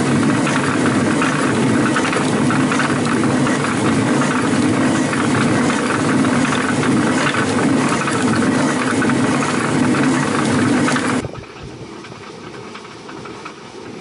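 A grain mill running, grinding wheat: a loud, steady rumble with a fast, even rattle. It cuts off suddenly about eleven seconds in.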